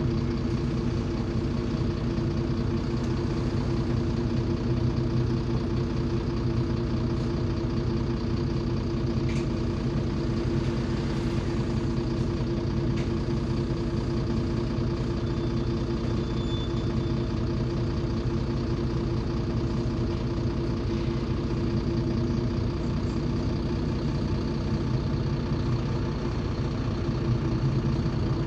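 City bus's Mercedes-Benz OM 926 LA six-cylinder turbodiesel idling steadily while the bus stands still, heard from inside the passenger cabin.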